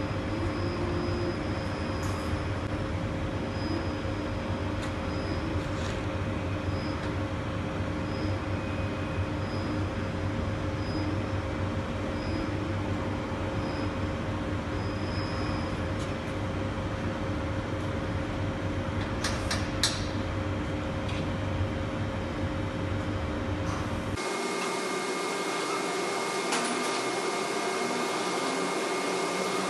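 Steady industrial machine noise with a constant hum, from a Miller robotic welding setup; a faint high blip repeats about once a second in the first half. About three-quarters through the sound changes suddenly: the deep rumble drops away and a thinner hum with steady high tones remains.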